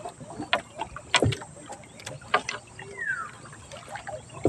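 Fishing net being hauled in by hand over the side of a small outrigger boat: scattered sharp clicks and knocks of the wet net against the boat's edge, about one a second, the loudest a little over a second in.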